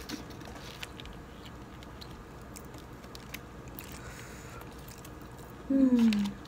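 Faint crunching and chewing of a crisp fried empanada, with light clicks as it is pulled apart by hand. Near the end comes a brief, louder voiced sound that falls in pitch.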